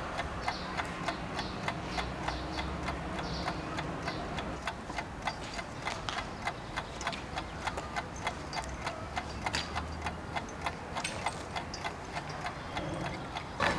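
A clock ticking steadily, about two ticks a second, over a faint low background rumble.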